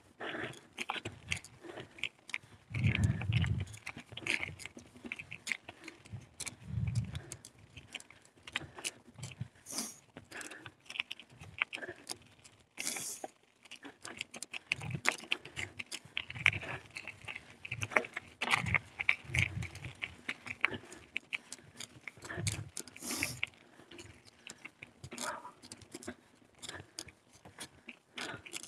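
Carrera Hellcat mountain bike rattling over a rough trail, with a dense run of irregular clicks and knocks, a heavier thud about three seconds in and another about seven seconds in.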